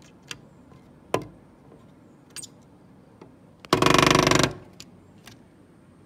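Black-rumped flameback woodpecker drumming its bill on the wooden window frame: scattered single taps, then one very rapid drum roll just under a second long about three and a half seconds in.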